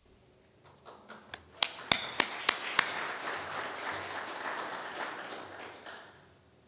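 Congregation applauding: a few scattered sharp claps build into a short spell of dense clapping that dies away after a few seconds.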